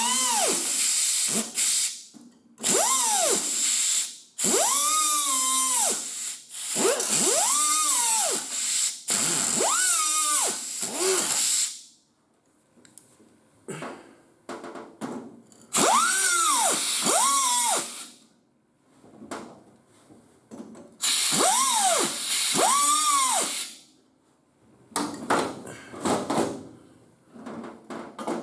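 Power drill run in about nine short bursts, its motor whine rising as it speeds up and falling as it winds down each time, with a strong high hiss while it runs. Near the end come a few light clicks and knocks.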